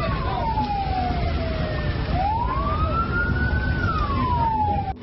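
Fire engine siren wailing, slowly rising and falling in pitch twice over steady low rumbling noise, cutting off suddenly at the end.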